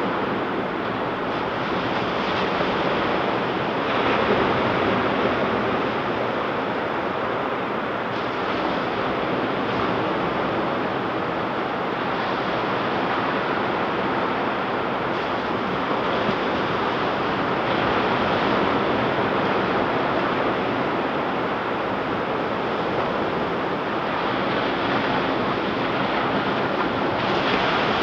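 Ocean surf breaking and washing up a beach, a continuous hiss that swells and eases every few seconds as waves come in.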